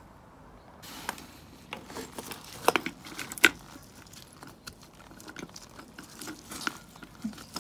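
Small metal clicks, taps and scrapes as a replacement cartridge oil filter and its centre bolt are pushed up by hand into a Moto Guzzi V7's finned sump, with a few sharper taps about three seconds in.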